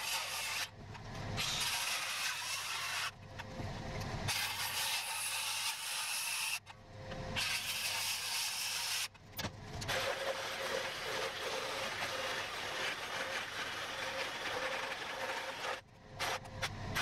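Circular saw cutting into a wooden post to notch it. It makes a run of cuts a few seconds long, with short stops between them.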